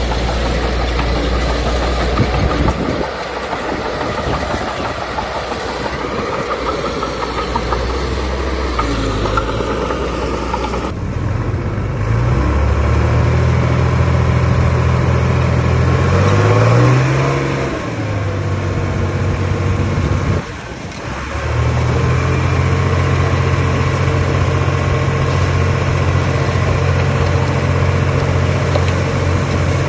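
Heavy diesel earthmoving machinery running, its engine working under load and rising in pitch as it revs about 16 seconds in. The sound breaks off and changes abruptly about 11 seconds in and again briefly near 21 seconds.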